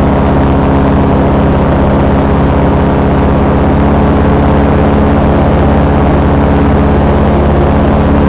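FB 122 paramotor engine running steadily at cruise power in flight, a loud, even drone with its propeller, heard close up.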